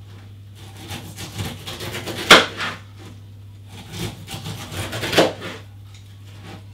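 Kitchen knife cutting the skin off a whole pineapple, its strokes knocking on a plastic cutting board. There are a few separate strokes, the loudest about two seconds in and another about five seconds in.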